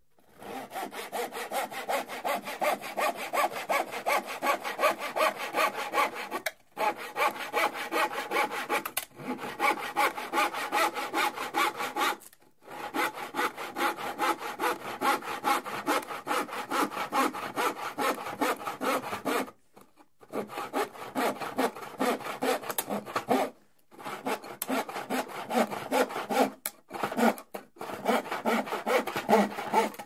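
Hand saw cutting through plywood: quick, even back-and-forth rasping strokes in several runs, broken by short pauses.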